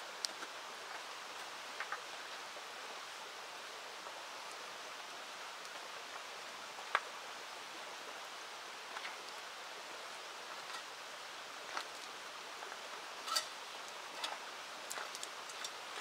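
Steady rushing of a river, with scattered sharp clicks and taps, one about seven seconds in and several more near the end.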